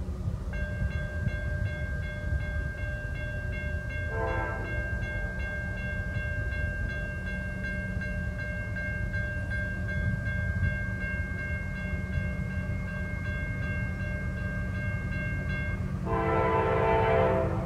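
Diesel locomotive air horn held in one long steady chord for about fifteen seconds, with a short blast of a second, lower-pitched horn about four seconds in and a louder blast of that lower horn near the end. A steady low rumble of the passing trains runs underneath.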